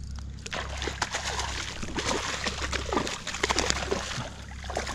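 A hooked spotted seatrout thrashing and splashing at the water's surface as it is brought in by hand, a run of irregular splashes and sloshing.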